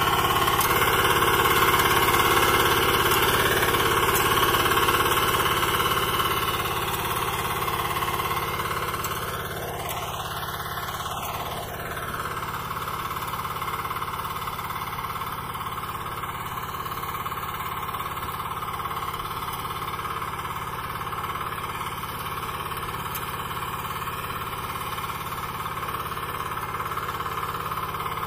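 A power tiller's single-cylinder diesel engine running steadily as it pulls a ridger through soil. It grows quieter about seven seconds in.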